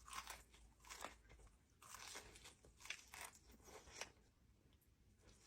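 Soft crunching and chewing of a crispy fried chicken wing, close to the microphone, in short crunches about once a second that die away near the end.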